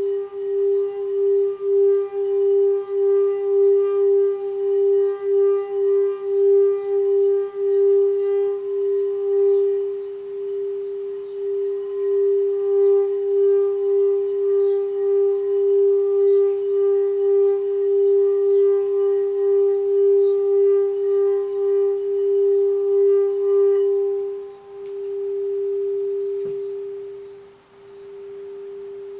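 Singing bowl ringing as meditation music: one steady low tone that wavers about twice a second, with fainter higher overtones above it. Near the end the overtones drop away, and a pure tone swells and fades twice.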